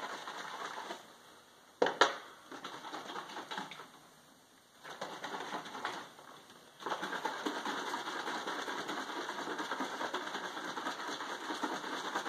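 Hot water and honey sloshing inside a capped plastic honey bottle being shaken to dissolve the honey, in spells with short pauses and a longer steady spell through the second half. Two sharp clicks about two seconds in.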